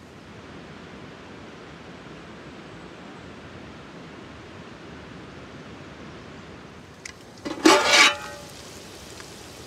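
A steady outdoor hiss, then about three-quarters of the way through a brief clatter as a metal lid is lifted off a cooking pot.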